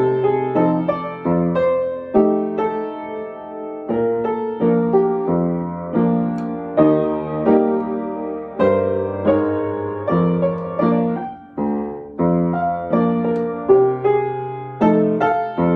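Piano being sight-read: chords and melody notes struck at a moderate, even pace, each left to ring and fade, with a short break in the sound about eleven seconds in.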